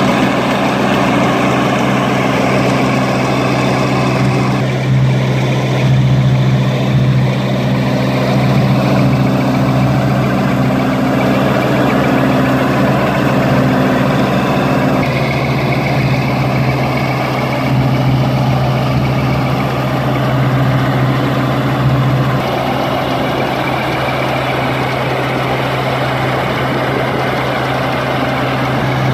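Combine harvester's engine running steadily under a continuous mechanical clatter. The tone shifts a couple of times partway through.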